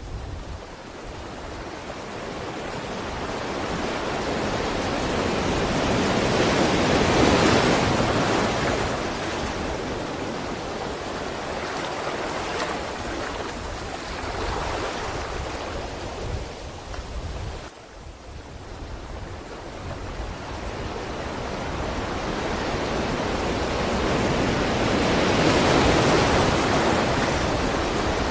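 Sea waves surging and washing in, swelling slowly to a peak about seven seconds in, easing off, then building to a second long surge near the end.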